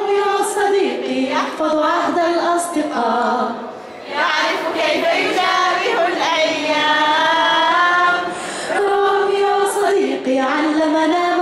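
A woman singing an Arabic cartoon theme song into a microphone, with long held, wavering notes.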